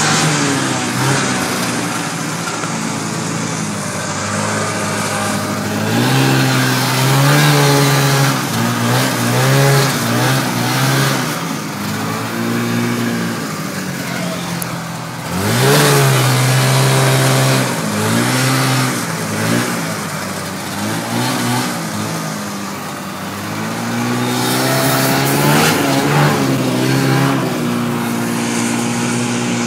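Polaris Indy snowmobile's two-stroke engine running under way, its pitch rising and falling again and again as the throttle is opened and eased off.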